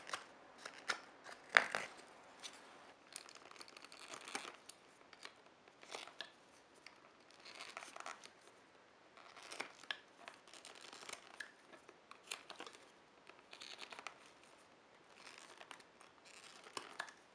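Carving knife slicing shavings from an ash spoon: short, scratchy cuts in clusters a second or two apart, with one sharper crack about a second and a half in.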